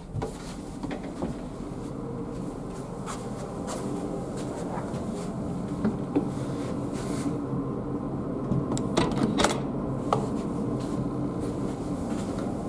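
Steady low hum inside a ferry, with scattered light clicks and knocks and a few louder ones about nine seconds in.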